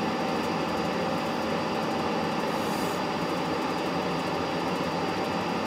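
Schaublin SV52 milling machine running with its large face mill spinning, a steady, even mechanical hum.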